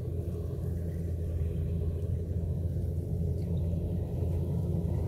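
Kubota DC-105X combine harvester's diesel engine running steadily as it cuts rice, a low, even rumble.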